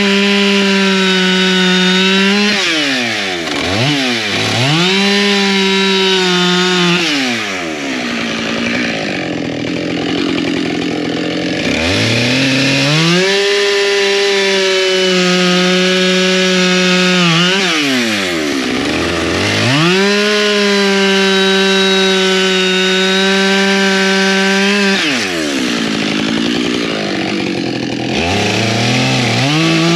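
Husqvarna chainsaw bucking firewood logs into rounds: the engine is throttled up and held at a steady high pitch through each cut, then drops back toward idle between cuts, about four cuts in all with the saw revving up again near the end.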